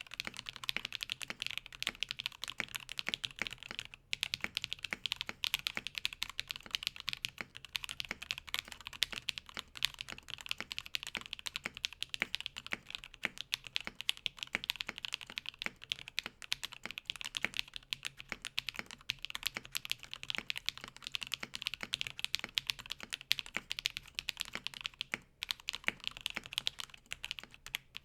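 Steady, fast typing on a TKC Portico gasket-mounted 65% keyboard with lubed and filmed Alpaca V2 linear switches on an FR4 plate, felt case foam and a silicone dampener installed. The keystrokes run together in a continuous patter, broken by a couple of brief pauses.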